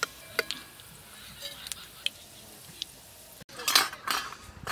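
Scattered metal clinks of a perforated steel spoon against a steel wok as fried onions are lifted out, followed near the end by a louder burst of clatter.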